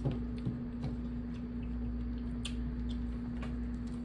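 Cooked blue crab shells being cracked and picked apart by hand: scattered light clicks and snaps, over a steady low hum.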